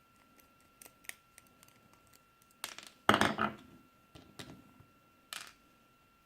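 Small metal lock parts being handled as a rekeyable lock is taken apart: a few light clicks, then a loud clatter of metal on metal about three seconds in, and another short rattle near the end.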